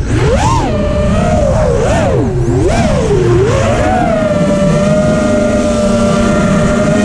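FPV quadcopter's brushless motors and propellers whining. The pitch swoops up and down with quick throttle changes in the first few seconds, then holds steady, over a rush of wind on the onboard microphone.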